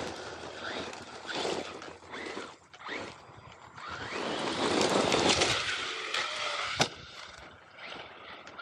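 Radio-controlled MT8 monster truck driving over rough, bumpy ground. It is loudest a little past the middle, with one sharp knock about seven seconds in.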